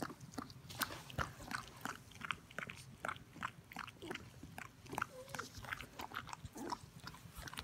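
Border collie licking her newborn puppy: a run of wet licking and smacking mouth clicks, about three or four a second, with a short squeak about five seconds in.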